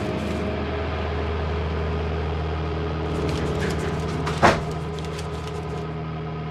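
Steady low drone of a vehicle engine running, with a brief sharp sound about four and a half seconds in.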